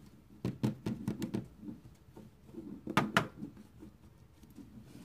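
Plastic Easter egg shells clicking and knocking as they are handled: a cluster of clicks about half a second in and a louder pair around three seconds in.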